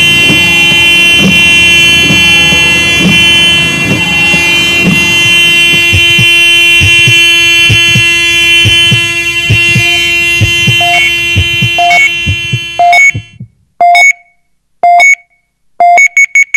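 A film soundtrack's held, droning chord over regular low thumps that quicken, cutting off abruptly about 13 seconds in. Then an audible pedestrian crossing signal beeps about once a second while waiting, switching to rapid beeps near the end as the crossing opens.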